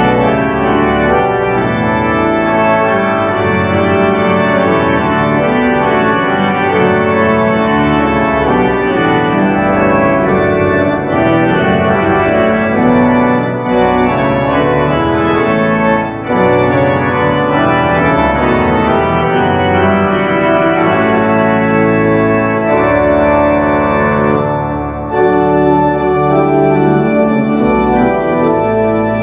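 Organ playing a hymn in full sustained chords with the hands on the manuals and a bass line on the pedals, the phrases broken by short gaps about 11, 16 and 25 seconds in.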